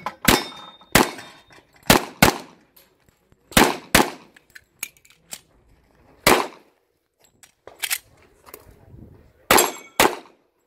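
Pistol fired rapidly in a practical shooting course of fire: about ten sharp shots, several in quick pairs about a third to half a second apart, with pauses of one to two seconds between groups.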